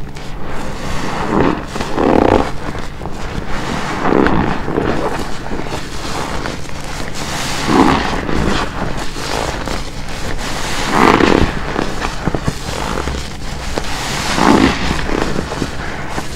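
A soaked black car wash sponge squeezed with shampoo lather: continuous wet squelching and crackling of foam, with a louder squelch about every three seconds as it is pressed.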